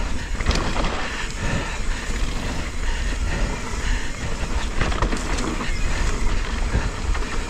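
Norco mountain bike riding fast down a dirt trail: wind buffeting the action-camera microphone under a constant rattle and clatter of the bike and knocks from the tyres over dirt and rocks.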